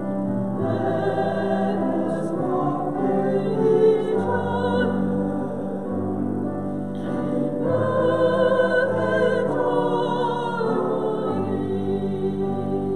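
A choir singing a slow sacred choral piece, holding long chords that change every second or two.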